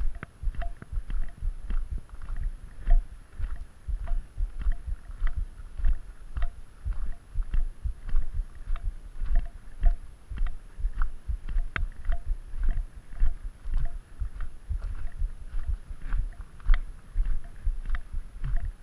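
Footsteps crunching on a gravel road at a steady walking pace, about two steps a second, each stride with a low thud.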